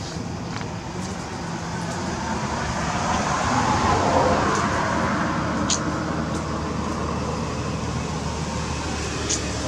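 A passing motor vehicle: its engine and tyre noise swells to a peak about four seconds in and then fades. Two short, sharp clicks come near the middle and near the end.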